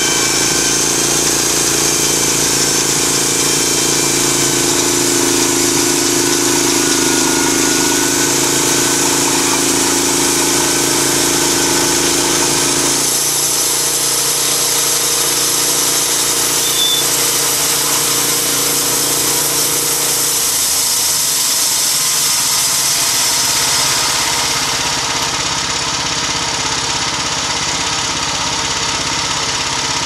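LogMaster LM1 bandsaw mill running, its engine driving the band blade as the saw head is pushed through a pine log. The engine note shifts abruptly about halfway through and grows lighter again toward the end.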